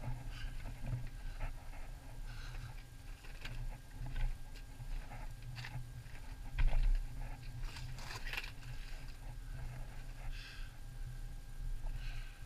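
Footsteps and scrapes of a person moving over rock in a lava-tube cave: irregular crunches, clicks and scuffs, with a louder flurry about two-thirds of the way through.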